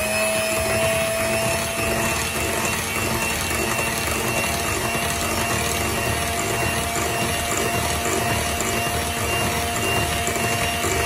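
Electric hand mixer running at a steady speed, its beaters whisking an egg into a bowl of pie batter.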